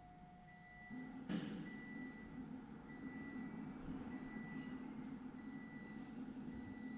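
A short electronic beep repeating about once a second. About a second in, a click and a low steady hum start, followed by a run of short high chirps: the Triumph Rocket III's idle stepper motors being driven through a TuneECU ISCV reset.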